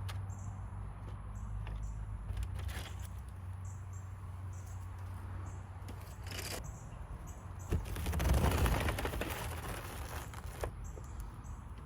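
Plastic DE filter grid elements handled and fitted into the manifold: scattered light clicks and knocks, with a louder scraping rustle about eight seconds in, over a steady low hum.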